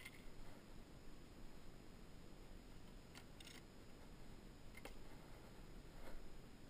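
Near silence broken by a few faint clicks and light knocks as fishing rods and reels are handled and laid down in a plastic jon boat, with a small cluster of clicks about three seconds in.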